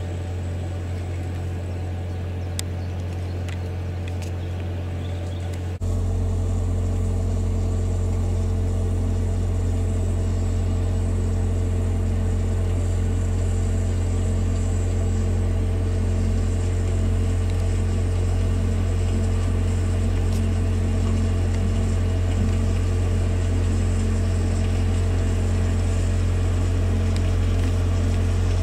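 Boat engine running with a steady low drone, stepping up louder about six seconds in.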